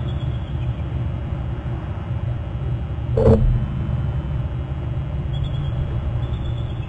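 Steady low rumble of outdoor microphone noise, with a single knock about three seconds in. A faint, thin high call sounds briefly near the start and again near the end.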